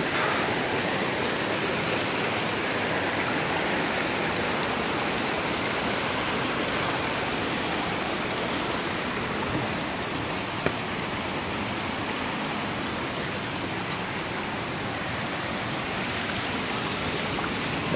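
Steady rush of a shallow mountain stream running over limestone rocks just below a waterfall, easing off a little toward the end.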